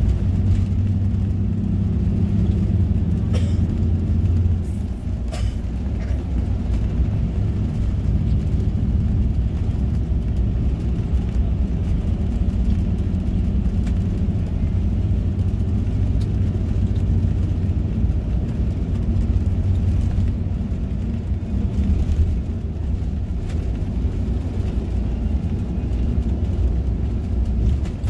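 Intercity bus driving on the highway, heard from inside the front of the cabin: a steady low engine and road rumble.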